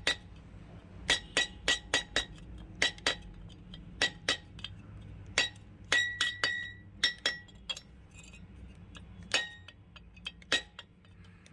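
Hammer tapping on a screwdriver used as a punch, staking the bush lock into a mixer grinder motor's housing. About twenty sharp metallic taps come in irregular groups, several leaving a brief high ring.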